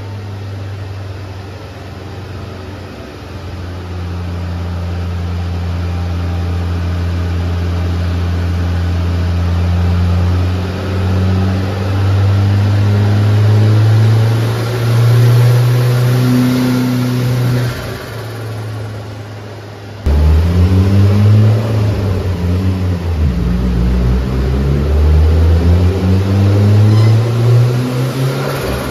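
Turbocharged 8-valve engine of a VW MK3 Golf GTI running at a steady speed whose pitch steps up a few times. After a sudden cut about two-thirds of the way through, it is revved repeatedly, the pitch rising and falling.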